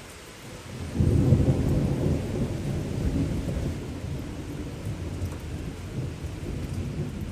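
A thunderclap breaks about a second in and rolls on as a deep rumble that fades slowly.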